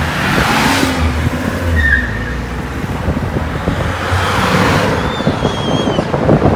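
Road traffic on a busy multi-lane road: cars and vans passing close by. Two louder pass-bys swell about a second in and again about four seconds in.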